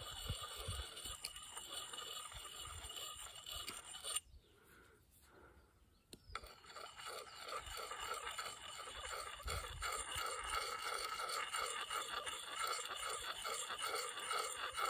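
A round sharpening puck rubbed against the steel bit of a small axe, a rhythmic scraping of stone on steel. The strokes pause for about two seconds a few seconds in, then pick up again steadily.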